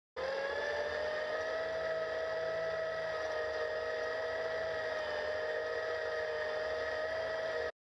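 Battery-electric Massey Ferguson 35 tractor, driven by a repurposed forklift motor, whining steadily as it pulls a two-bottom plow through soil. The whine climbs a little in pitch as it begins, then holds steady over a low rumble.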